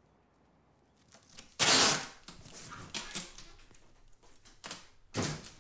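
Packing tape being torn off a roll in rasping rips while cardboard moving boxes are sealed. One long, loud rip comes about a second and a half in, and shorter rips and box handling follow.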